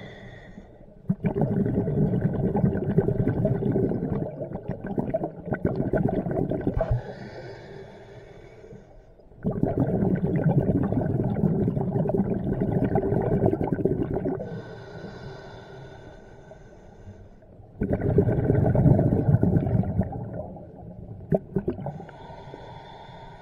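Scuba diver breathing through a regulator underwater: three long exhalations of crackling bubbles, each followed by a shorter inhalation with a steady hissing whistle from the regulator. About one breath every eight seconds.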